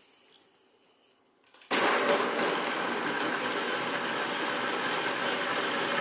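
Countertop blender starting up nearly two seconds in and running steadily at full speed, blending a protein shake of milk, water, banana and protein powder.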